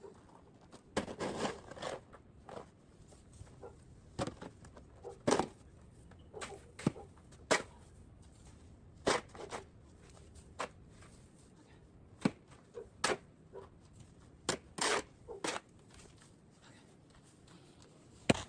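Snow shovel scraping and crunching through snow on a porch: about twenty irregular strokes, each a fraction of a second long.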